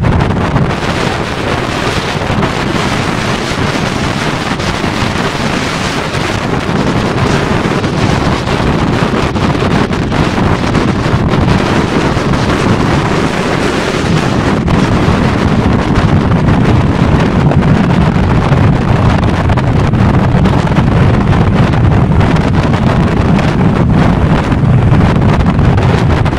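Strong gusty wind blowing straight onto the microphone: a loud, steady rushing noise with heavier low buffeting in the second half.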